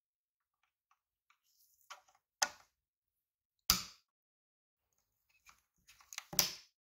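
Hard plastic model-kit parts being handled and pressed together: faint taps, then three sharp plastic clicks about a second or more apart, the last one among a quick cluster of smaller clicks near the end.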